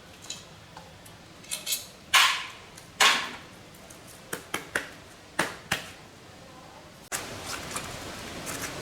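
Metal parts or tools being handled in a workshop: a string of sharp clinks and knocks, two of them louder and ringing briefly. About seven seconds in a steady rushing hiss starts abruptly.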